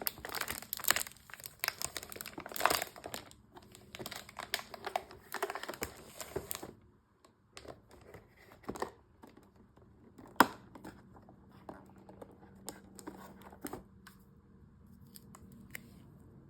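Packaging being torn open and crinkled by hand for about seven seconds, then quieter handling with scattered clicks and taps, including one sharp click about ten seconds in.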